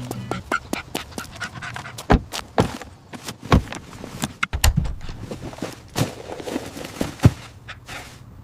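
A dog panting in short, irregular breaths, just after steady background music stops.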